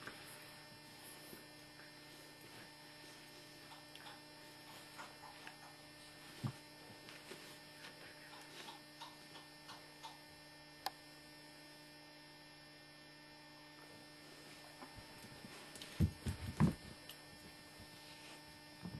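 Steady electrical hum with faint scattered clicks, and a short cluster of soft thumps about three seconds before the end.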